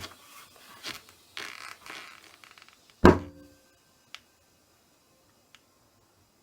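Handling noises: a few short scrapes and rustles, then a single loud knock with a brief ring about three seconds in, followed by a couple of faint clicks.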